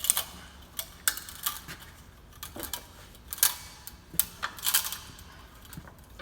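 Irregular sharp metallic clicks and knocks of a bench vise being tightened around a hydraulic cylinder barrel, with a short scraping rasp a little after the middle.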